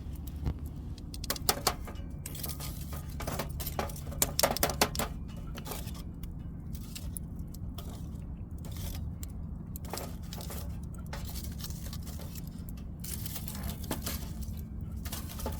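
Clinking and rattling of small metal objects being handled, with sharp clusters in the first five seconds and scattered clicks later, over a steady low hum.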